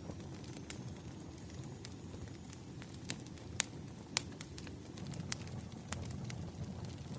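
Campfire crackling: irregular sharp pops and snaps, a few of them louder, over a steady low rumble of the flames.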